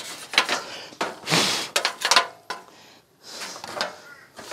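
Short, irregular blasts of air from a hand-held air blower, blowing dust out of a clothes dryer, the longest lasting about half a second, about a second in.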